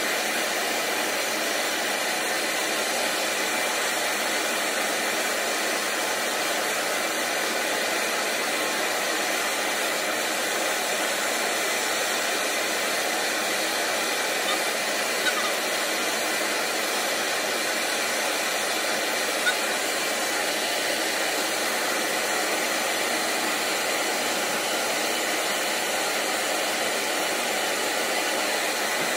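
A steady, unchanging rushing noise of running air, like a blower, with two faint clicks around the middle.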